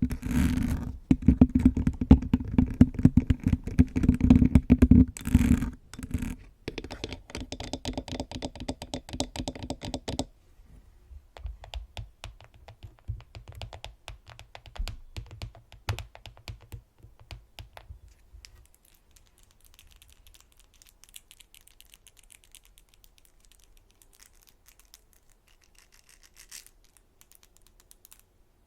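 Fingernails scratching directly on a microphone: loud, dense scratching with a deep rumble. About ten seconds in it gives way to quick, sharp fingernail taps on a camera body. Later these become fainter nail-on-nail tapping.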